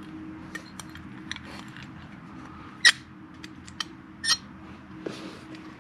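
Small clicks and taps of screws and a screwdriver being handled while screws are refitted into a motorcycle turn signal housing. The sharpest click comes about three seconds in, over a steady low hum.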